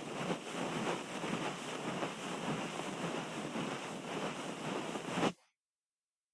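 ASMR ear cleaning: a tool rubbing and scratching close against the microphone's ear, a dense run of small scraping strokes that cuts off abruptly about five seconds in.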